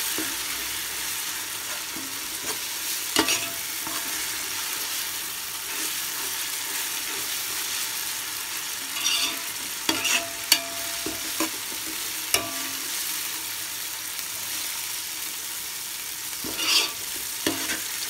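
Sliced onions frying in oil in a metal pot with a steady sizzle, already fried golden brown. A steel spoon stirs them, scraping and knocking against the pot several times, loudest about three, ten and seventeen seconds in.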